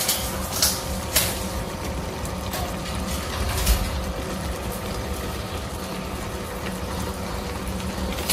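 Fish in tomato sauce simmering in a frying pan on an induction hob: a steady hum from the hob under a soft bubbling, with a few sharp pops from the sauce, three of them in the first four seconds.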